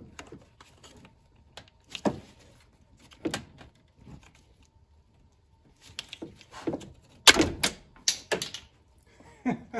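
Hand work in a car's engine bay: scattered clicks, knocks and thunks of plastic and metal parts being handled, with a cluster of sharper, louder knocks about seven seconds in.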